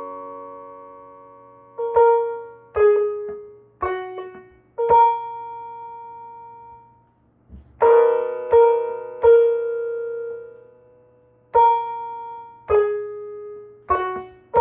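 Piano voice of a Vangoa VGD611 61-key digital piano: single notes and small chords played slowly and haltingly, each one ringing and fading away, with a pause of about three seconds in the middle.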